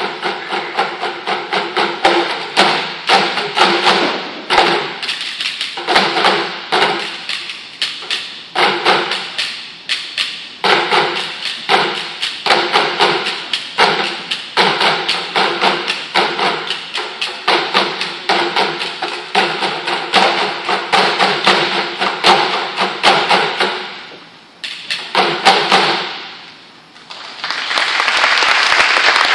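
Percussion ensemble beating plastic buckets and pipes with sticks in a fast, busy rhythm, the struck pipes giving hollow pitched tones. The playing stops with a last few hits near the end, and applause starts right after.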